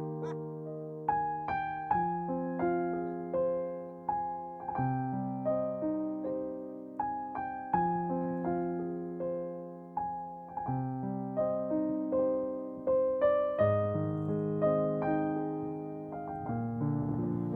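Background piano music: slow, gentle notes struck one after another, each ringing and fading.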